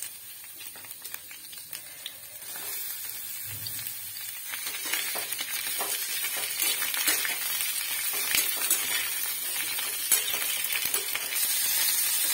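Chopped onion and capsicum sizzling as they fry in hot oil in a steel kadhai, with small clicks and scrapes of stirring against the pan. The sizzle grows steadily louder.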